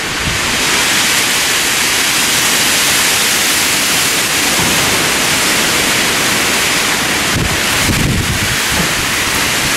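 Big gust of storm wind rushing through the trees with rain, a loud steady hiss. Wind buffets the microphone in low rumbles about seven and a half to eight and a half seconds in.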